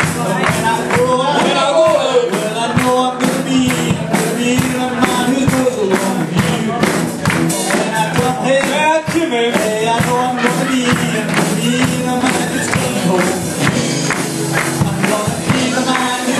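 Live band playing an upbeat pop-rock song on amplified guitars, with a steady beat and a jangling tambourine, and voices singing along.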